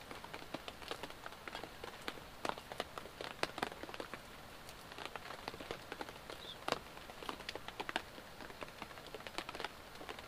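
Rain falling on the tarp shelter overhead: irregular sharp drops over a steady hiss of rain.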